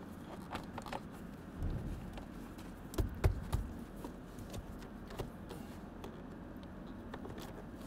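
Rubber door weatherstrip being pressed by hand back onto the door opening of a pickup cab: scattered light taps and rubbing, with a few dull thumps around the middle.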